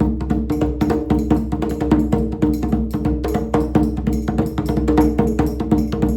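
Djembe played by hand in a fast, dense rhythm of sharp strokes, with steady pitched tones sounding underneath.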